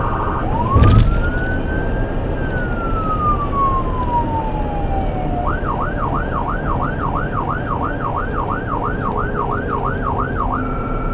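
Emergency vehicle's electronic siren sounding one slow wail that rises and then falls, then switching about halfway through to a fast yelp of about three warbles a second. A loud thump comes about a second in.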